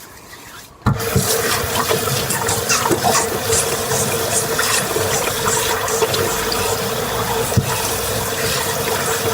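A water tap is turned on about a second in and runs steadily into a sink while hands are washed under it. A steady tone sits under the rush of the water.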